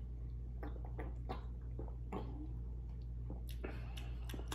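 Drinking from a plastic water bottle: quiet swallows with small scattered clicks and crackles of the bottle, over a steady low hum.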